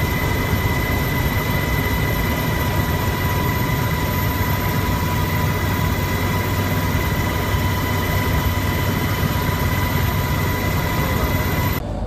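Steady aircraft engine noise heard from on board: a constant rush with a steady high whine and a low hum. It cuts off abruptly near the end.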